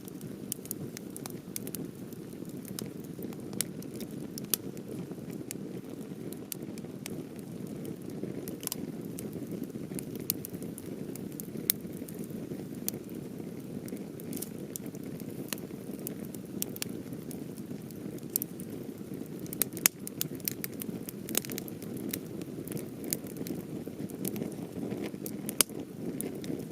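Campfire of half-seasoned Japanese cedar (sugi) wood burning: a steady low rush of flame with frequent sharp crackles and pops from the part-dried wood. The loudest pops come about twenty and twenty-five seconds in.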